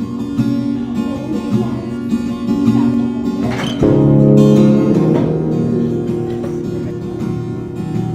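Background music led by plucked and strummed acoustic guitar, with a short sharp sound a little under four seconds in.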